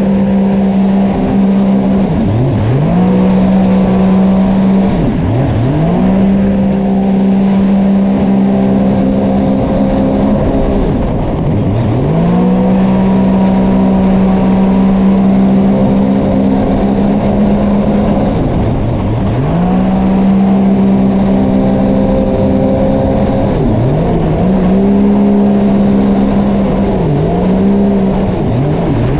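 Sea-Doo personal watercraft engine running hard at high, steady revs. The pitch drops sharply and climbs straight back several times: short lifts and reapplications of the throttle.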